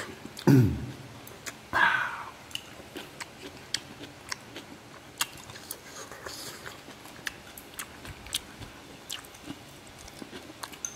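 People eating at the table: chewing, with sharp clicks of chopsticks against bowls and the griddle, a click or two a second. A short low falling sound about half a second in is the loudest moment, and a brief noisy burst follows at about two seconds.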